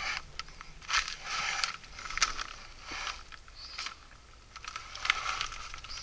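A person crawling through a crawl space: body, clothes and hands rustling and scraping over the ground, in uneven spurts with short pauses.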